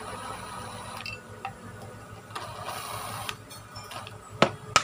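Small clicks and taps of parts being handled and fitted together during throttle body reassembly, with a short rustling stretch around the middle and two sharp clicks near the end.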